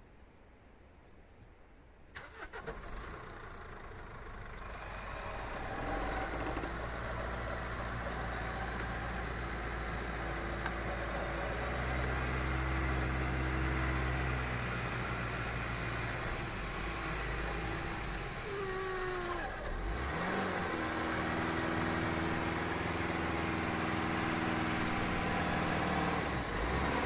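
Electric winch on a Mercedes Sprinter's front bumper hauling the stuck van forward by its cable, with the van's engine running. The sound comes in about two seconds in, builds over a few seconds and then runs steadily, its pitch shifting a little under load, with a falling then rising glide about two-thirds of the way through.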